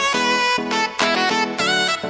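Instrumental background music with a regular beat and a horn-like lead melody; one note bends in pitch near the end.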